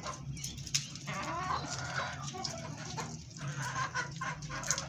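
Chickens clucking, with short calls and scattered clicks over a steady low hum.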